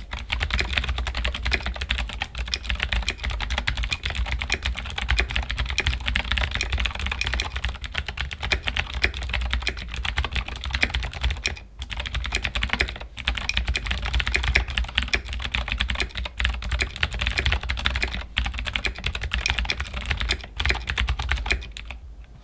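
Fast, continuous typing on a Keychron K8 Pro mechanical keyboard fitted with clicky Gateron G Pro Blue switches. There is a brief pause about halfway, and the typing stops right at the end.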